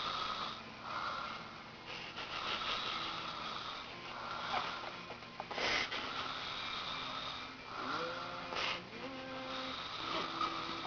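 Giant panda snoring, with one noisy breath after another about every second.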